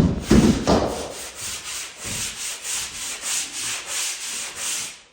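Palm sander rasping over dried joint compound on a drywall patch, in steady rhythmic strokes, smoothing out lumps in the mud. A few thumps in the first second as it goes onto the wall.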